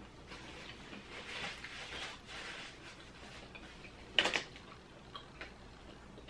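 Quiet sounds of a person at a table: a few soft breaths and scattered small clicks, with one sharper click about four seconds in.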